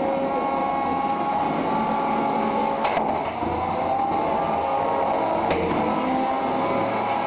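Small electric motors of 1 lb combat robots whining, their pitch rising and falling as the robots drive, with sharp knocks about 3 s and 5.5 s in.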